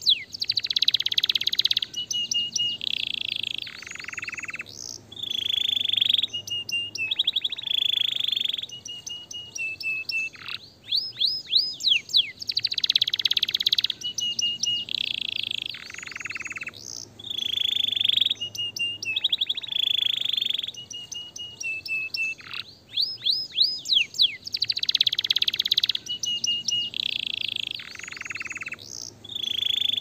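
Canary singing: quick runs of falling whistled notes, buzzy trills and short level notes. The same song phrase comes round again about every eleven seconds.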